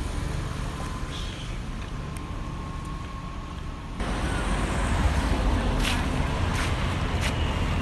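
Steady low outdoor rumble that gets louder after about four seconds, with a few short sharp clicks near the end.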